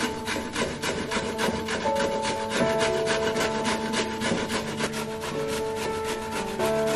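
Food being grated on a stainless steel box grater into a bowl: quick, regular rasping strokes, several a second.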